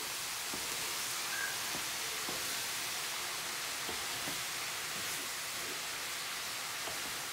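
Shredded cabbage sizzling as it stir-fries in a nonstick pan, a steady hiss, with soft knocks and scrapes of a wooden spoon tossing it every half second or so.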